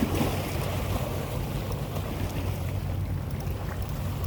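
Steady low rumble of wind on the microphone with the sea, with no distinct event standing out.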